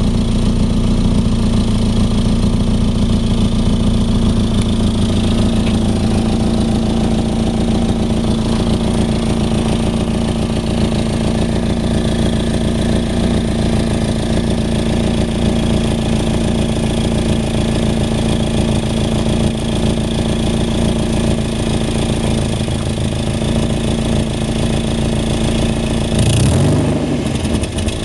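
Nissan 240SX's KA24DE 2.4-litre four-cylinder engine idling steadily through a 3-inch dual exhaust that has an exhaust leak. Near the end the engine is revved briefly and drops back to idle.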